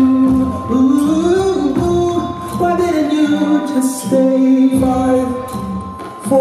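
Music with a singing voice: a melody of held, gliding notes over a low beat.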